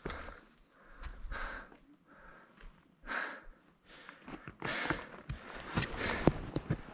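A hiker breathing hard while climbing a steep rocky trail, with heavy breaths about every one and a half seconds. In the last couple of seconds come sharp clicks of steps or a pole striking rock.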